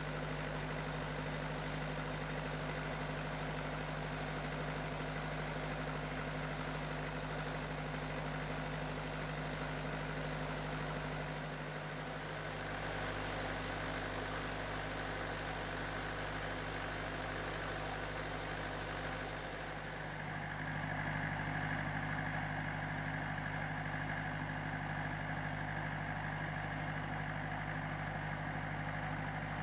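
Kubota V2203 diesel engine idling steadily at an even speed.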